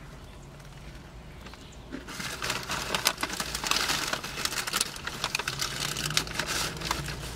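Paper fast-food bag rustling and crinkling as it is handled, starting about two seconds in and going on as a dense run of crackles.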